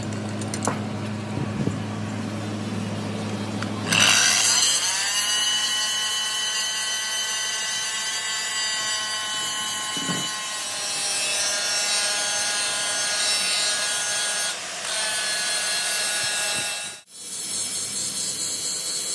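A steady low hum, then about four seconds in an angle grinder bites into the welded seam of a cast-iron truck cylinder head: a loud, hissing grind over a high, steady whine. It breaks off briefly near the end and the grinding resumes.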